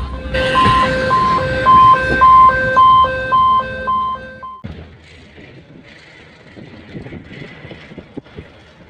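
Level-crossing warning alarm beeping about twice a second over the low rumble of a passenger train passing close by. Both cut off abruptly about four and a half seconds in, leaving a much fainter hiss of wind on the microphone with scattered clicks.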